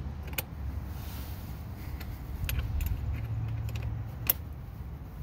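Wrench clinking on a car battery terminal bolt as the battery cable is reconnected: a few sharp, irregular metallic clicks, the loudest a little past four seconds in, over a steady low rumble.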